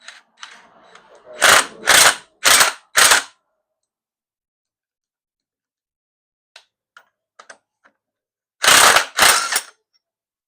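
Ratchet wrench clicking in four short loud runs early on, a few faint clicks near the middle, and another loud cluster of runs near the end, as fasteners are worked on the engine.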